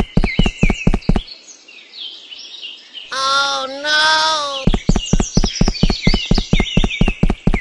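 Quick, even cartoon footstep sound effects, about five steps a second, over background birdsong chirping. The steps stop about a second in, a cow's moo with a bending pitch sounds for about a second and a half, and then the quick steps start up again.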